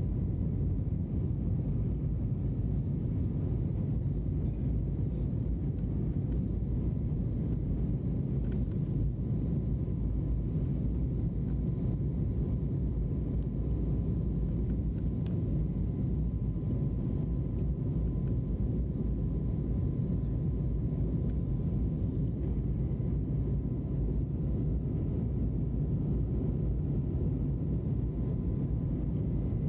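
Airbus A321neo airliner cabin noise heard from a window seat during the climb: a low, steady rumble of engines and rushing air, with a faint steady hum above it.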